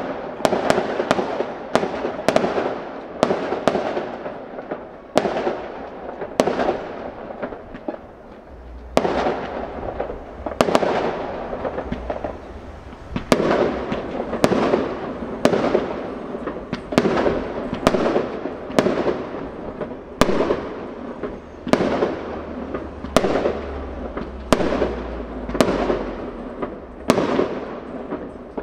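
Aerial firework shells bursting one after another, a string of sharp bangs often less than a second apart, each followed by a fading echo.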